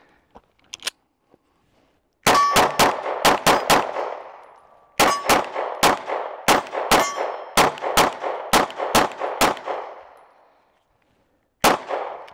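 Canik MC9 L 9mm pistol fired in rapid strings: a quick run of about seven shots, a short pause, about eleven more, then a single shot near the end. Steel targets ring briefly after some of the hits.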